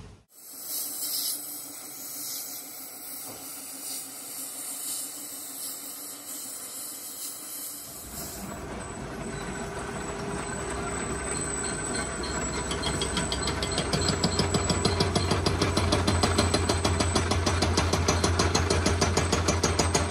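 Metalworking machines running: about eight seconds of steady high hiss, then, after an abrupt change, a machine running with a fast even pulse and a low hum that grows louder.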